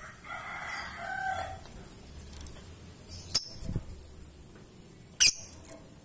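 Lovebird (Fischer's type) giving two short, sharp, high calls, about two seconds apart. Near the start a fainter rooster crow, about a second and a half long, sounds behind it.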